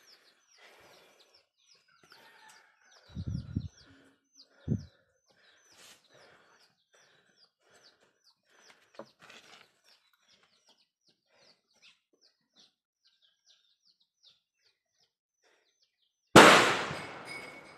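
Small birds chirping over and over in quick high notes, with two low thuds about three and four and a half seconds in. Near the end a sudden loud bang cuts in and dies away over about a second.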